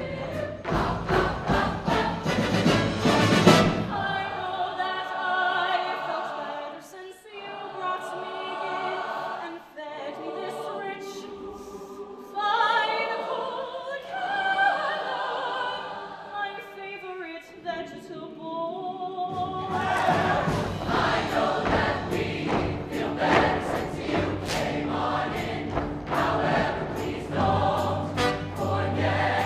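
Show choir singing with its live band. About four seconds in, the bass and beat drop out and the choir sings on alone in close harmony. The band and beat come back in about two-thirds of the way through.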